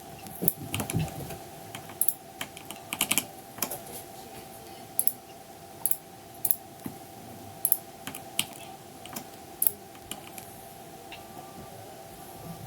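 Computer keyboard keys clicking in irregular taps, with a steady hum underneath.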